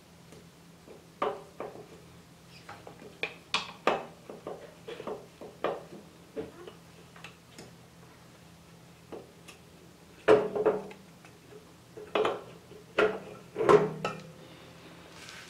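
Metal engine parts clinking and knocking as they are handled during top-end disassembly of a Yamaha TDR250's two-stroke parallel-twin. Scattered light taps run throughout, with louder clusters of clanks about ten seconds in and again a couple of seconds later. A faint low hum runs underneath.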